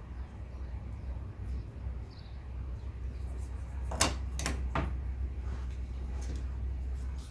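Three quick knocks or clicks close together about four seconds in, over a steady low hum.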